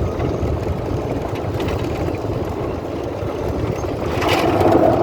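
Golf cart driving over gravel: a steady rough rumble of tyres on loose stones, growing louder about four seconds in.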